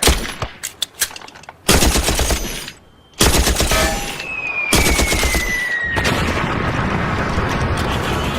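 Machine gun firing: a few scattered shots, then a dense burst, a brief break about three seconds in, then sustained rapid fire.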